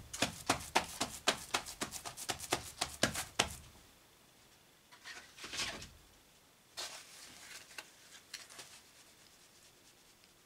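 Hand work on a cordwood wall of firewood pieces set in clay mortar: a fast run of knocks, about six a second, for the first three and a half seconds, then a few softer scrapes and scuffs as mortar is pressed between the pieces.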